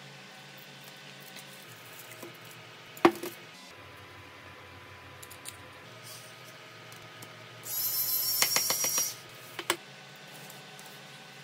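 Small metal repair tools clicking and tapping on an opened smartphone, with one sharp click about three seconds in. About eight seconds in, a high hiss lasts about a second and a half, with clicks inside it.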